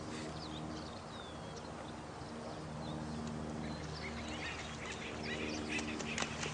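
Nighttime nature soundscape: steady running water under repeated low calls about a second long, with high bird chirps that grow busier and mix with light clicks about four seconds in.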